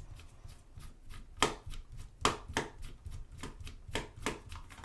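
Irregular sharp clicks and knocks of hard plastic being handled: the housing of a small digital camera being turned over and worked on during disassembly, with a few louder knocks about halfway through.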